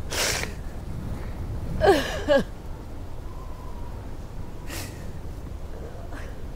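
A woman crying: a sharp gasping breath at the start, a wavering, falling sob about two seconds in, then shaky breaths, over a low steady rumble of wind.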